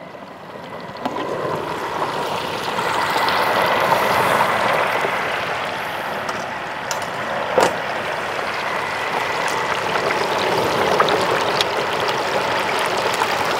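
A whole turkey deep-frying in a pot of hot oil, the oil bubbling and sizzling steadily; the sound swells about a second in as the lid comes off. A single knock comes about seven and a half seconds in.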